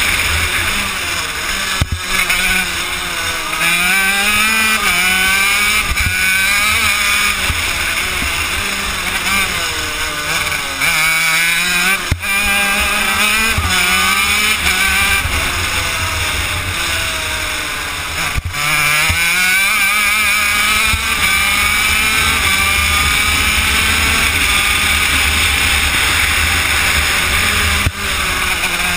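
Honda CR80 single-cylinder two-stroke engine of a shifter kart at full racing load, its pitch repeatedly climbing in long rising glides and dropping back sharply as the kart is shifted and lifted for the corners.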